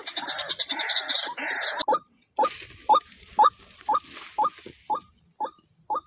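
White-breasted waterhen calling: about two seconds of dense, harsh croaking, then a run of short, evenly spaced 'kwak' notes about two a second.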